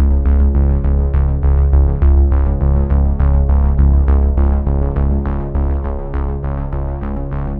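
Electronic background music: held synthesizer chords over heavy bass and a steady, quick beat.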